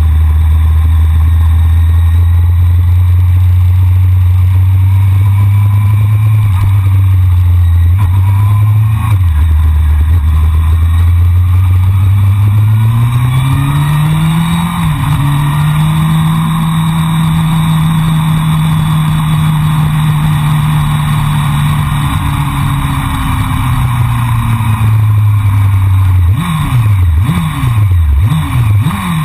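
Honda CBR600F4i inline-four sport-bike engine under way. It runs steadily, drops briefly with a gear change about nine seconds in, then climbs in pitch under acceleration around twelve to fifteen seconds, holds a higher steady note, and eases off. Near the end there are several quick revs up and down.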